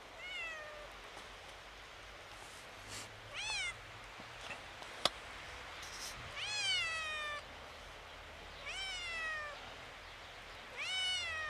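Kitten meowing five times, a few seconds apart, each call rising and then falling in pitch. A single sharp click about halfway through.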